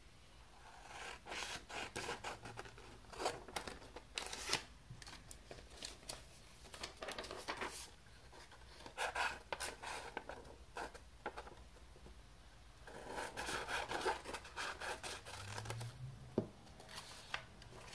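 Scissors cutting through a sheet of paper, a run of snips in three spells with short pauses between.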